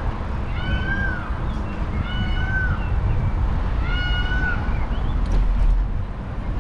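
An animal calling three times, each call a short meow-like cry that rises and falls in pitch, over a steady low wind and road rumble.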